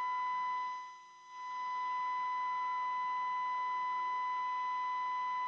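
Braun SK25 tube radio's loudspeaker reproducing the steady audio test tone carried on a 550 kHz AM signal from a signal generator: the set is tuned onto the test signal during oscillator alignment. The tone fades briefly about a second in, then holds steady, with faint wavering whistles behind it.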